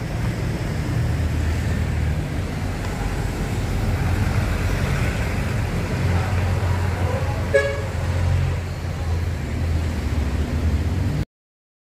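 Street traffic: vehicle engines running with a steady low rumble, and one short horn toot about seven and a half seconds in. The sound stops abruptly near the end.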